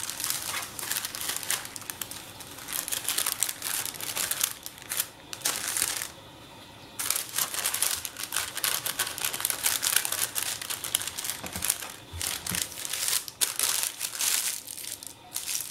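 Parchment paper crinkling and rustling as hands roll and twist it around a log of parsley butter, with a brief pause about six seconds in.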